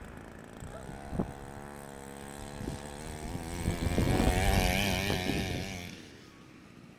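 Small two-stroke strimmer engine of an RC car running, growing louder and wavering in pitch around four to five seconds in, then dropping away about six seconds in.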